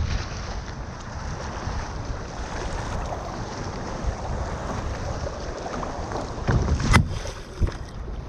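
Wind buffeting the microphone and water sloshing as a sea kayak is paddled through choppy swell. A sharp knock about seven seconds in.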